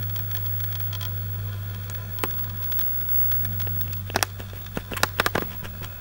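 Camera handling noise: a single click about two seconds in, then a cluster of sharp clicks and knocks as the zoom lens is turned out to a wider shot, over a steady low hum.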